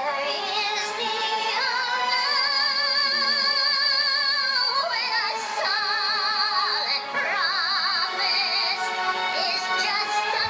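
Operatic singing voice with a synthetic sound, holding high notes with a wide, very even vibrato: one long held note in the first half, then a string of shorter notes.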